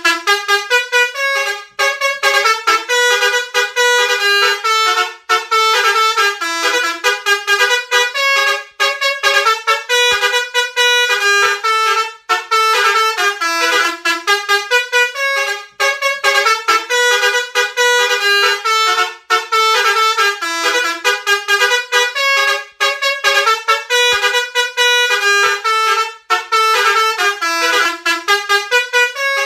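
Basuri telolet multi-tone bus horn playing a fast, tooting melody of short notes, several pitches sounding together. The phrase repeats with a brief break about every three and a half seconds.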